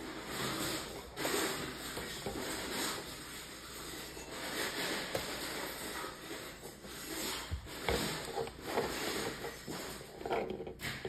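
Plastic Lego bricks being handled, rubbed and pried at by hand, with a few small clicks about two thirds of the way through.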